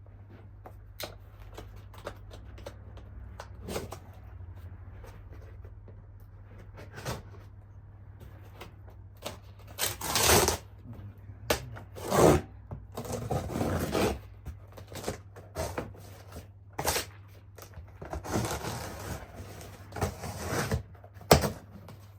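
A cardboard box being opened and a hard case being unpacked from it: light clicks and taps at first, then from about ten seconds in a string of louder scraping and rustling noises with a few sharp knocks.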